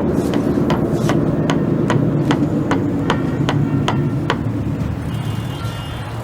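A run of about eleven sharp, evenly spaced knocks, about two and a half a second, over the steady low drone of a moving vehicle. The knocks stop a little past halfway through.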